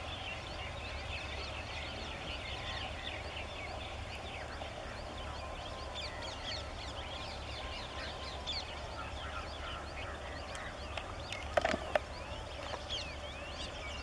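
Many birds chirping and chattering at once, a dense mix of short high calls throughout, with a brief louder burst of sound a little before the end.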